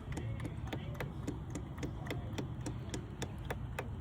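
Motor oil glugging out of a jug into the engine's fill opening: a quick, uneven run of gulping clicks and short bubbling blips, several a second, over a low rumble.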